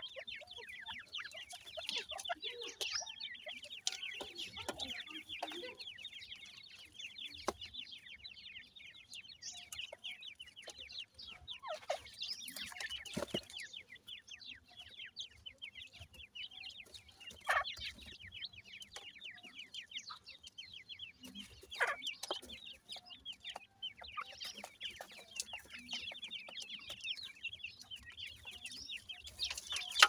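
Young francolins (dakhni teetar) calling in a continuous stream of rapid, short, high peeps, with a few sharp clicks from the birds pecking and scratching in the dry soil.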